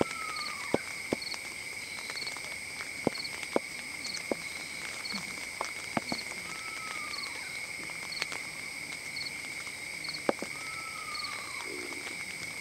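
A nighttime insect chorus: a steady high trill, with short triple chirps repeating about once a second above it. Three times a short call slides downward in pitch, and a few sharp clicks or snaps stand out as the loudest sounds.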